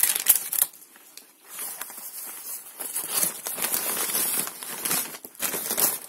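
Thin paper wrapping crinkling and rustling as it is handled and unfolded by hand, with a short lull about a second in.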